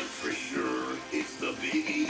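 Music with singing and voices playing from a television in the room.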